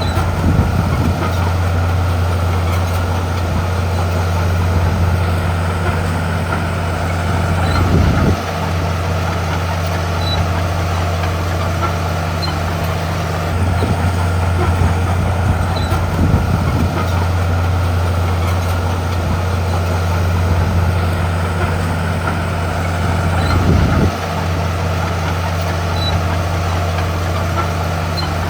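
Komatsu D41P bulldozer's diesel engine running steadily under working load with a low drone. It swells briefly about eight seconds in and again near the end, each time dropping back suddenly.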